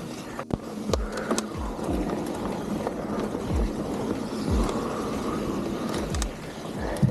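Mountain bike rolling over a dirt trail: tyre and wind rumble, with low thumps from bumps about once a second and scattered light rattling clicks from the bike.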